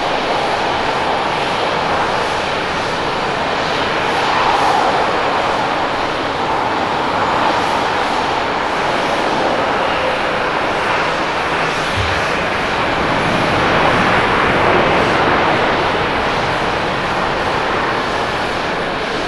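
Boeing 787-9's Rolls-Royce Trent 1000 turbofans and airframe during a landing: a steady jet rush as the airliner comes in, touches down and rolls out. It grows a little louder about four seconds in and again around fourteen seconds.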